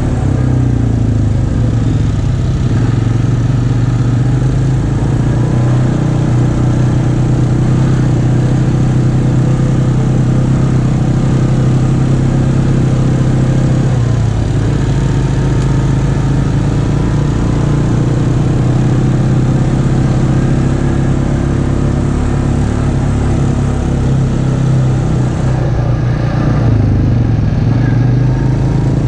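ATV engine running steadily at trail-riding speed, its pitch rising and falling a little with the throttle.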